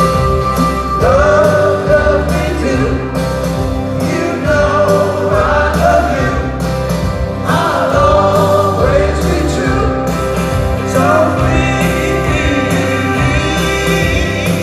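Live band music with a male lead vocal singing phrase after phrase over strummed acoustic guitar and a steady drum beat.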